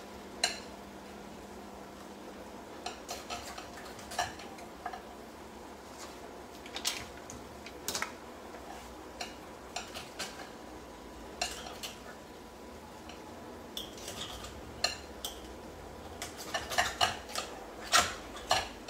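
Cutlery clinking and scraping against a ceramic plate and bowl as food is served, in irregular sharp knocks that come faster near the end.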